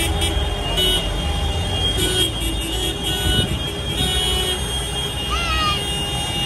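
Diesel engines of large farm tractors running as they drive slowly past close by: a deep, steady rumble. A brief high-pitched squeal comes over it about five seconds in.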